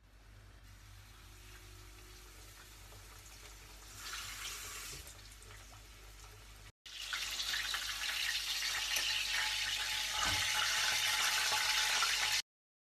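Breaded beef schnitzel frying in hot sunflower oil in a stainless steel pan. A quieter hiss at first, briefly louder about four seconds in, then after a short break a loud, steady sizzle that cuts off suddenly near the end.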